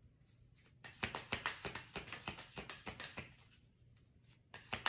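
A deck of oracle cards being shuffled by hand: a quick run of soft card slaps and flicks, a pause, then another run near the end.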